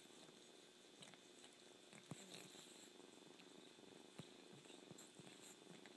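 Cat purring faintly and steadily while an adult cat licks a kitten, with a few short wet licking smacks; the loudest come about two seconds in and again about four seconds in.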